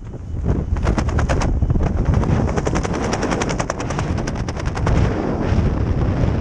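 Wind buffeting the microphone as a parachute canopy opens, the nylon fabric flapping in a fast, loud rattle that builds about half a second in.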